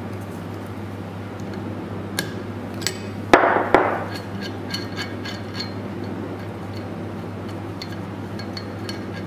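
Metal-on-metal clinks and two sharp metallic knocks about three and a half seconds in, a short ringing after them: a spanner working the steel air connection fitting on a pneumatic cylinder.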